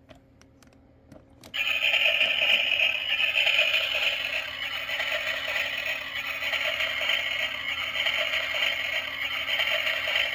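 A toy play-kitchen cooktop playing its electronic sizzling sound effect: a steady hiss that starts suddenly about a second and a half in, after a few faint clicks.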